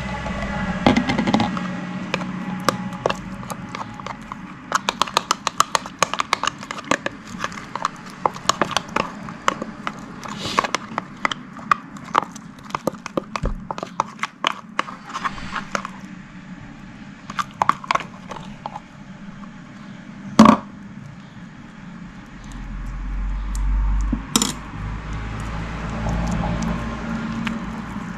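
Slime being squeezed and worked by hand, with many small sticky pops and clicks, densest in the first half. A single sharp knock about twenty seconds in, and a low rumble near the end.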